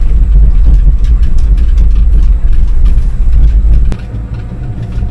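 Inclined-lift carriage running down its steep track: a loud, steady low rumble with scattered clicks. About four seconds in there is a sharp click, and the rumble drops noticeably quieter.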